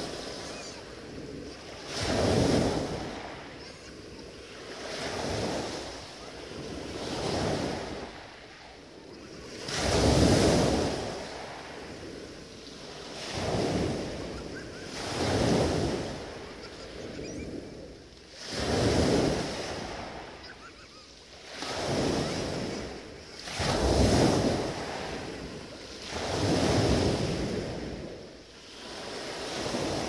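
Small sea waves breaking and washing up a pebble beach, one surge every two to three seconds, each swelling and then fading away.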